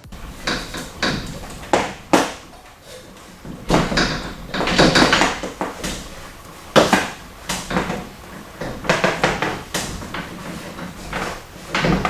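Irregular knocks, clunks and scrapes of hand work with tools and materials, with a few sharp raps spread through.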